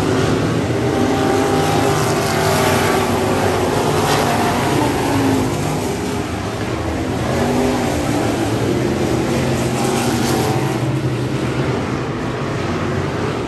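A pack of dirt-track race cars running together around a clay oval. Several engines rise and fall in pitch as the cars go through the turns and down the straights.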